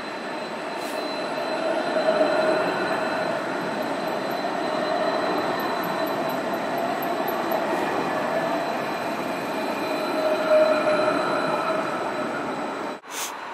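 Light-rail tram rolling past close by on a curve, its wheels squealing against the rails over the steady running noise. It cuts off abruptly about a second before the end.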